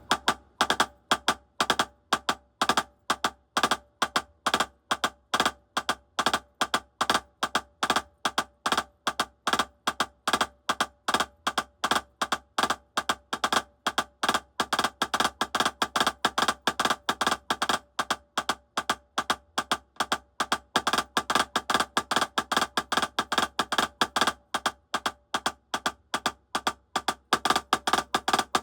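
Drumsticks playing a steady repeating sticking pattern: a shuffle with a left-hand note slipped between its two notes, the way into Herta (single-stroke three) figures. Under the sharp strokes there is a steady ringing from the nearby drum kit and cymbals vibrating in sympathy.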